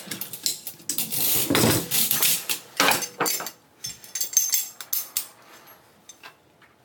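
Metal clicks and clatter of M4 carbine parts being handled and fitted together on a tabletop, dense through the first half and thinning to scattered clicks near the end.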